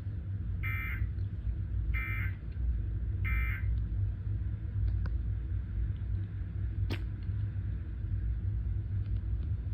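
Three short electronic data bursts, evenly spaced about a second and a half apart, from the tornado warning broadcast: the end-of-message signal that closes an emergency alert. A steady low rumble runs underneath, with a single click near the end.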